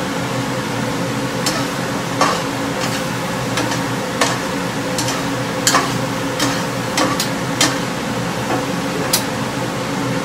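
Morning glory stir-frying in a pan over a gas burner: a steady sizzle under a steady hum, with about a dozen sharp clicks and clinks of a spoon on the pan and seasoning bottles.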